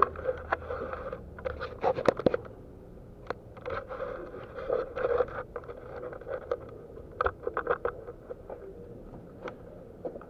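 Footsteps crunching and scraping over loose rubble and gravel, with clothing and gear rubbing close to the microphone, in irregular bursts.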